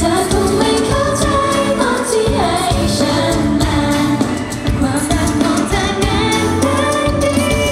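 Live Thai pop song: a group of women singing into handheld microphones over a live band of electric guitars and drums, with a regular beat.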